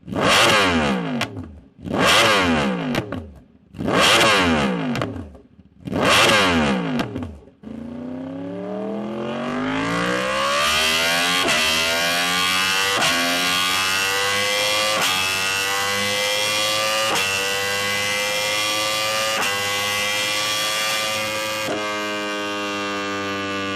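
Yamaha R1 inline-four through an aftermarket exhaust: four sharp revs, each falling back to idle, then a long steady climb in engine speed under acceleration. Near the end the pitch drops and starts climbing again.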